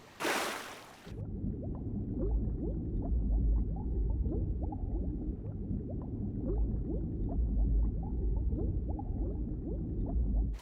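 Cartoon sound effect of a splash as someone jumps into water, then muffled underwater ambience: a steady low rumble with bubbles gurgling.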